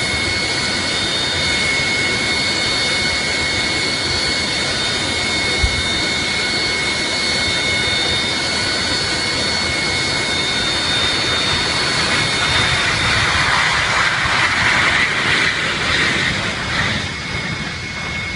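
Jet airliner's engines running loud and steady at close range: a high whine of several held tones over a rushing hiss. The hiss swells louder for a few seconds past the middle, then eases, and a single short knock sounds about six seconds in.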